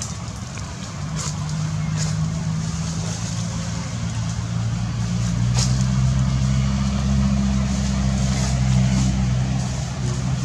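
A motor vehicle engine running at a steady low pitch, growing louder from about four seconds in and easing near the end, with a few brief clicks on top.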